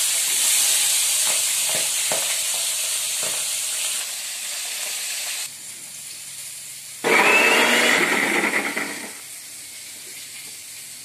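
A fish head sizzling as it fries in hot oil in a kadhai, with a few spatula scrapes as it is turned. About seven seconds in, an electric mixer grinder runs loudly for about two seconds, grinding a wet ginger, garlic and chilli spice paste.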